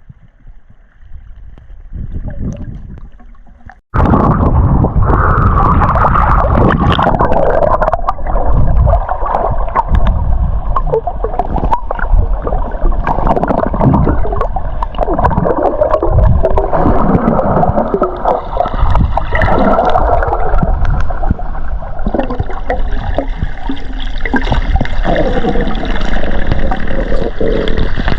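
Water gurgling and churning as heard by a submerged camera, muffled and dense. It starts abruptly about four seconds in, after a quieter opening.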